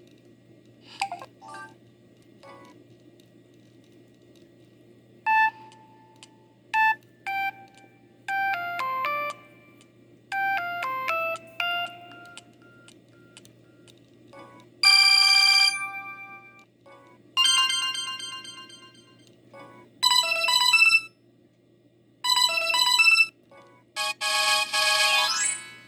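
Samsung SGH-E200 mobile phone playing its built-in ringtones: a string of short electronic melodies, each cut off after a second or two with a brief pause before the next starts, over a faint steady hum.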